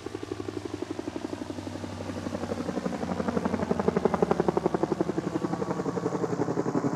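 Helicopter rotor beating in a fast, even rhythm, growing louder over the first few seconds as it comes near.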